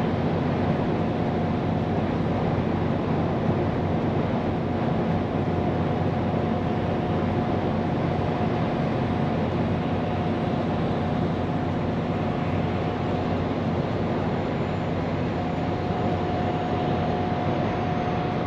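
Scania P410 truck's diesel engine running steadily under way, with road and tyre noise, heard from inside the cab. A faint steady whine sits above the drone through most of it.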